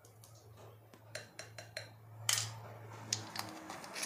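Scattered light clicks and taps of a small plastic spoon and a small bottle of ube flavoring being handled and capped over a bowl of batter. A low steady hum underneath stops about three and a half seconds in.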